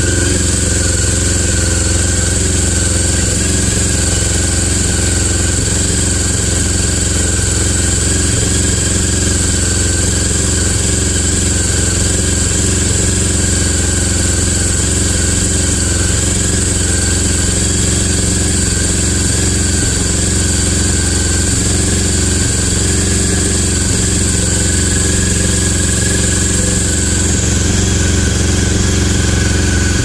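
Four-carburetor, four-cylinder motorcycle engine running steadily at about 3,000 rpm, with its carburetors hooked to a vacuum synchronizer.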